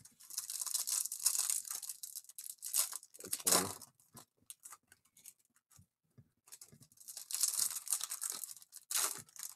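A trading card pack's wrapper being torn open and crinkled in the hands, in two main bouts of tearing and rustling with a quieter gap between them.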